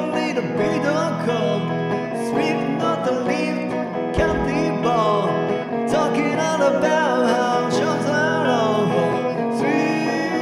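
A Gretsch electric guitar being picked, playing an instrumental passage with notes that bend and waver in pitch over a steady low backing.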